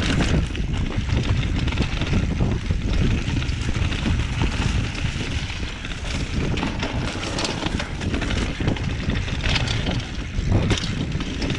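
Mountain bike riding fast down a dirt singletrack: wind rumble on the microphone, tyres rolling over dirt, and frequent knocks and rattles of the bike over bumps.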